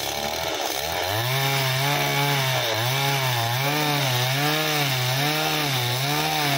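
The small engine of a Cantas motorised oil-palm pole cutter runs at working speed as it cuts. Its pitch rises and falls evenly, about three times every two seconds, and the note firms up about a second in.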